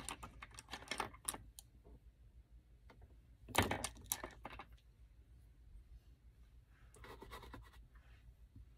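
Small clicks, scrapes and rattles of makeup products being handled, with one louder knock about three and a half seconds in, like a case or container being set down or opened.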